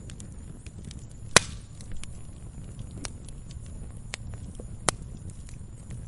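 Wood campfire burning: a low steady rumble of flames with frequent small crackles from the logs, and two loud sharp pops, the first and loudest about a second and a half in, the other near five seconds in.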